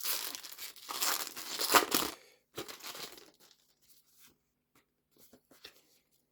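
Foil wrapper of a Pokémon trading card booster pack being torn open by hand: a crinkly ripping for about two seconds, a shorter rustle just after, then a few faint taps.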